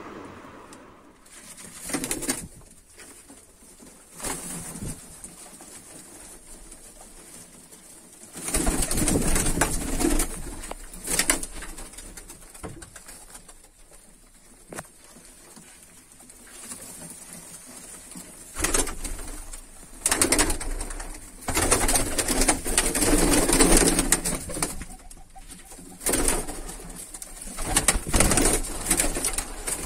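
Domestic pigeons cooing in a small loft, with several louder, noisy stretches of scuffling or wing movement, one about a third of the way in and more in the second half.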